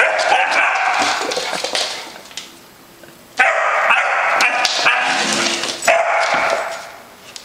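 Basset hound puppy barking and yipping in high-pitched bouts at a round metal tin, treating it as a threat. It pauses about two seconds in, starts again about a second later, and trails off near the end.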